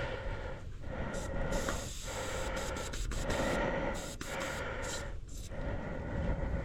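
A fat-bike rider breathing hard while pedalling through wet snow, about one breath a second, over steady riding noise from the bike.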